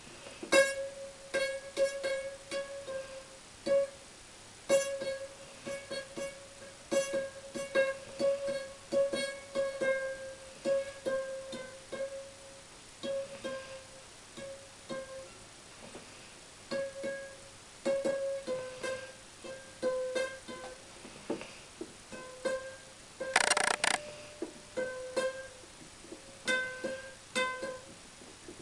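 Tensioned tennis racket strings twanging again and again as fingers push and flick them along the string bed, each pluck a short ringing note at nearly the same pitch. About two-thirds of the way through there is one louder, rougher scrape.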